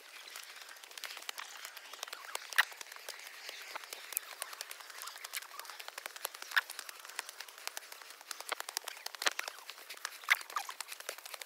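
Footsteps crunching on a dry, leaf-strewn dirt trail, a dense run of irregular crackles with a few louder cracks, over a faint steady rush of running water.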